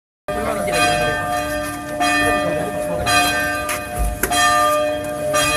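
Church bells tolling for the dead, struck about once a second, each stroke ringing on under the next.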